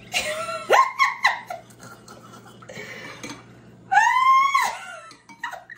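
A woman's high-pitched wordless vocalizing: short calls that rise and fall, one in the first second and a half and another about four seconds in, with a few light clicks between them and a steady low hum underneath.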